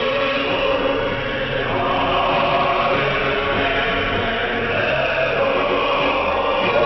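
Choral music with sustained, held voices, heard through a shortwave radio receiver, so the sound is cut off above about 6 kHz.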